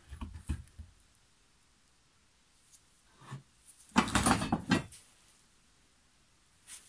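Handling noise of a steel lawn mower blade being reseated on a small cone blade balancer on a wooden bench: a few light knocks at the start, then a louder scraping clatter lasting about a second, about four seconds in.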